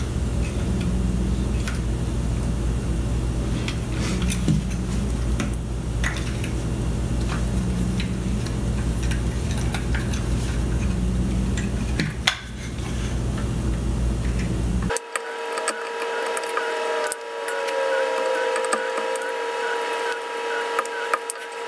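Light clicks and taps of an infrared thermometer's plastic case being handled and worked apart by hand, over a steady low hum. About fifteen seconds in, the hum cuts off suddenly and a few faint steady tones take its place.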